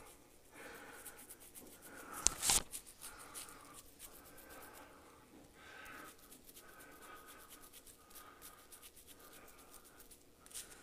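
Solid Ice Cube pre-shave soap bar rubbed over beard stubble against the grain: faint, rapid scratchy strokes, with one louder sound about two seconds in.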